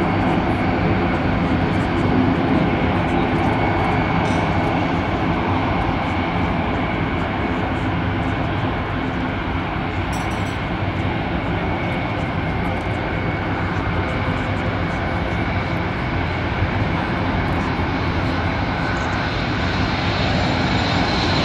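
Large Airbus aircraft's engines heard in flight during a display pass: a steady rush of engine noise with a faint high whine held within it.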